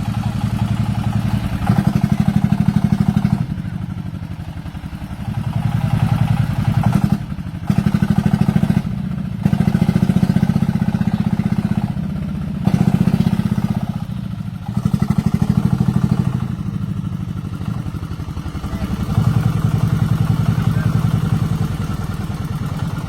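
Diesel engine of a homemade farm vehicle chugging loudly, revved up hard and eased off again and again as it strains to drive its wheels out of deep mud.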